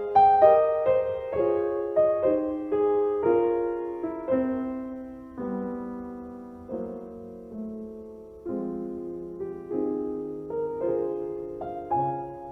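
Slow, gentle piano music: notes and chords struck one after another, each fading away before the next.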